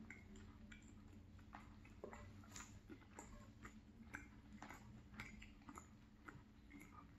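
Faint chewing of a mouthful of salmon pie, with irregular small mouth clicks.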